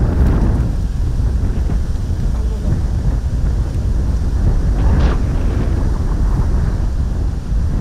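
Wind buffeting the microphone outdoors: a steady low rumble, with a short burst of noise about five seconds in.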